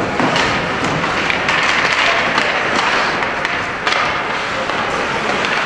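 Crowd din in a large indoor arena, a steady mix of voices, with scattered sharp clacks and thuds from play.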